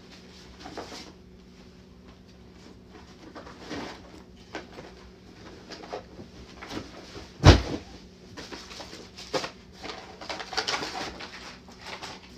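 Rustling and clatter of items being taken out of a fabric travel bag, with one sharp thump about halfway through, the loudest sound. A steady low hum runs underneath.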